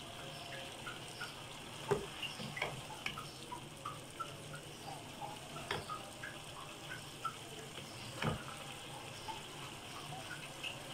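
Cauliflower and cabbage curry bubbling in a kadai with a steady hiss and many small pops, while a wooden spatula scoops through it and knocks against the pan a few times, hardest about two seconds and eight seconds in.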